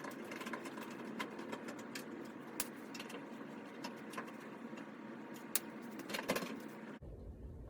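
Irregular small metallic clicks and taps of a screwdriver taking out the screws that hold a clothes dryer's top and front panel, over a steady background hiss.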